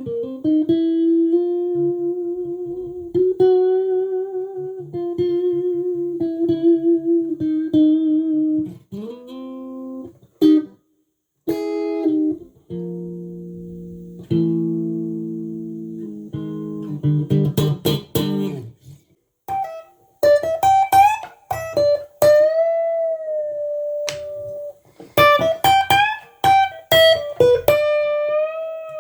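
Tomson Spirit Sounds Stratocaster electric guitar played on its own. It opens with a slow lead line of long held notes with vibrato. About halfway through come a few sustained chords, then quicker picked notes and string bends.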